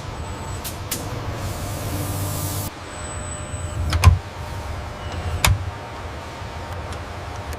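Steady whirring of factory machinery with a hiss that cuts off under three seconds in, then two sharp clunks about a second and a half apart.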